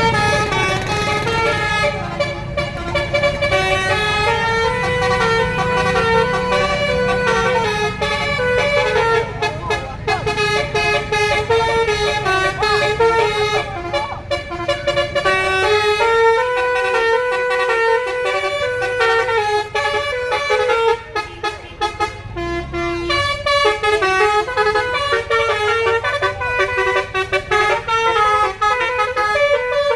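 Basuri multi-tone air horn on a tour bus playing a long melody in stepping notes, with the bus engine rumbling underneath.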